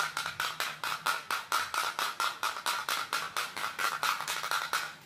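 Clockwork of a wind-up plastic toy horse running, an even, rapid clicking of about six clicks a second as the spring drives its walking legs.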